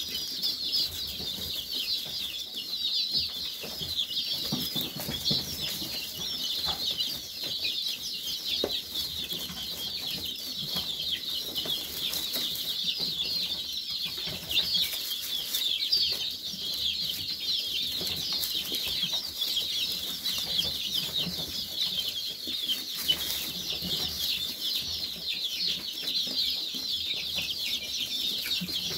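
A brood of young chicks, several weeks old, peeping and cheeping continuously, many high, short chirps overlapping at once.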